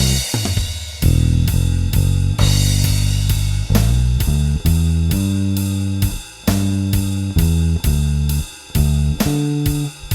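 Electric bass with a Seymour Duncan Designed pickup, run through a studio bass compressor, playing a sustained blues bass line over a drum kit with snare and hi-hat keeping a steady beat.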